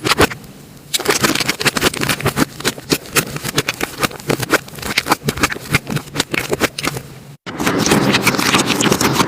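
Slime being worked by hand, making a quick, irregular run of sticky clicks and pops. After a break about seven seconds in, it changes to denser, continuous crackling.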